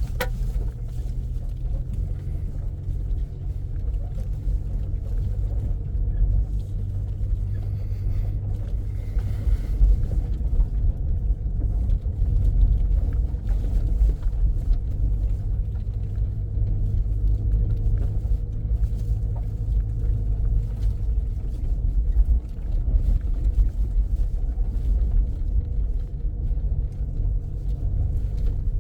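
Steady low rumble of a vehicle on the move, heard from inside, uneven in loudness as it goes over a rough road.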